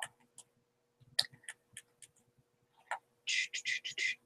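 Stylus tapping and scratching on a graphics tablet while brushing shadows in: scattered faint clicks, then a quick run of short scratchy strokes about three seconds in.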